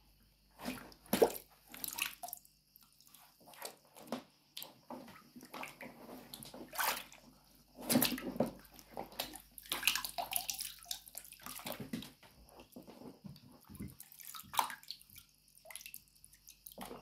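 Black high-heeled booties moving in a bucket of water, sloshing and splashing in irregular bursts with short quiet gaps between them.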